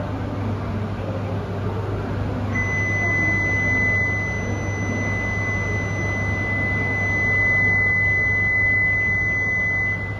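A steady high electronic warning tone, starting about two and a half seconds in and held without a break, over the low steady hum of a Shinkansen train standing at the platform: the door-closing warning just before departure.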